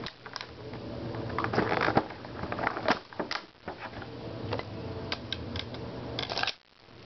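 Handling noise from a plastic toy sword: irregular clicks and short rustles close to the microphone, over a steady low hum. The sound drops out briefly near the end.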